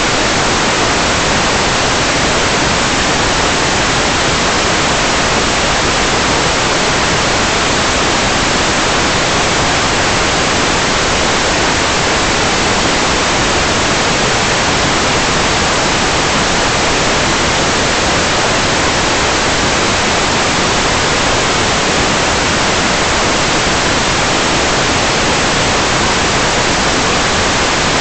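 Loud, steady static hiss, an even noise with no tone or rhythm in it.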